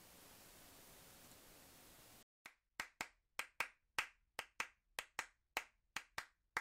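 Faint steady hiss, then, about two seconds in, one person clapping their hands at a steady pace, about four claps a second.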